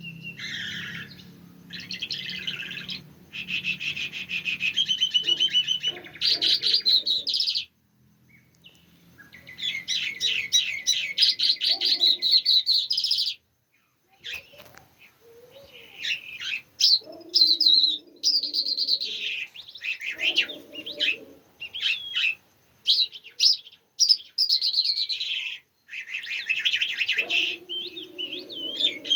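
A songbird singing a long, varied song of rapid trills and chirps, in phrases several seconds long, with two sudden breaks.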